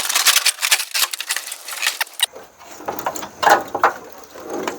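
Sheet metal of a 1968 Pontiac GTO's quarter panel crackling and clattering as it is cut free and worked loose from the body: a quick run of sharp clicks for about two seconds, then scattered knocks and scrapes.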